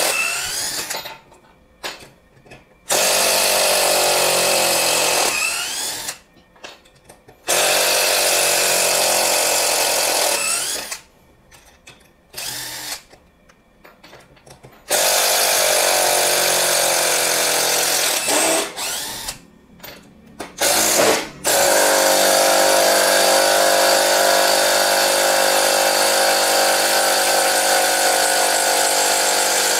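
Mollar CIDR12150U 12-volt brushed cordless impact driver backing out 8 cm screws, running in five bursts separated by short pauses, the last one long and steady for about the final eight seconds.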